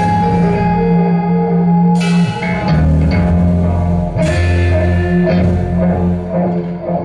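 Live rock played on electric guitar and drum kit: the guitar plays a low riff of long held notes, with cymbal crashes about every two seconds.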